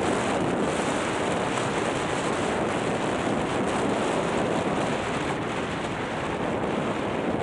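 Steady rushing noise of a downhill ski run: wind over the microphone mixed with skis sliding over groomed snow.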